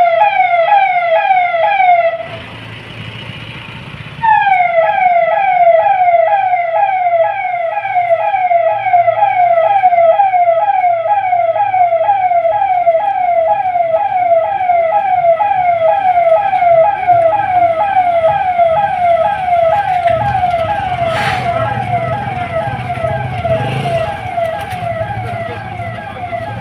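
Electronic vehicle siren sounding a rapid, evenly repeating yelp, each note dropping in pitch. It cuts out for about two seconds near the start, then resumes, over the low hum of an engine.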